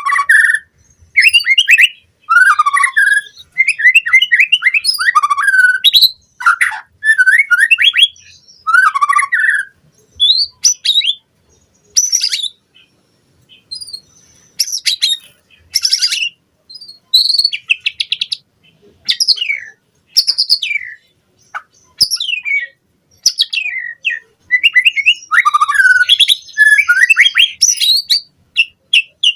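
White-rumped shama (murai batu) singing a long, varied song in quick bursts with short pauses. The bursts are loud, rapid whistled phrases, sweeping notes and chattering trills.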